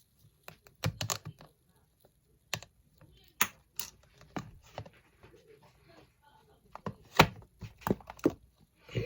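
Irregular sharp taps and clicks, like kitchen utensils and dishes being handled, a dozen or so spread over several seconds with quiet gaps; the loudest comes about seven seconds in.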